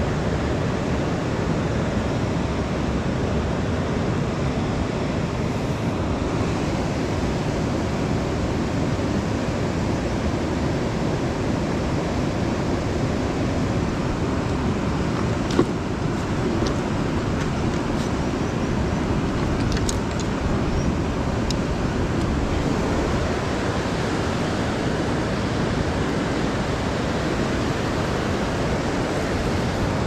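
Steady rush of a fast river running over rapids, with one sharp click about halfway through and a few faint ticks after it.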